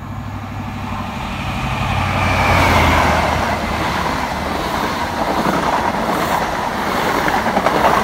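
Class 43 HST passing at speed: the diesel drone of its power car swells and is loudest about three seconds in, then gives way to the steady rumble of the coaches' wheels on the rails.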